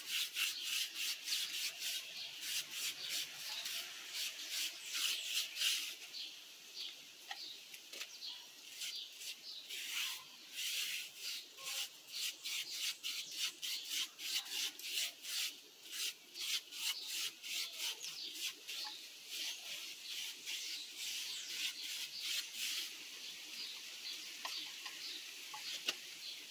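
Paintbrush bristles scrubbing water-based varnish into a rough mortar faux-wood surface: quick back-and-forth strokes, several a second, each a short scratchy rub.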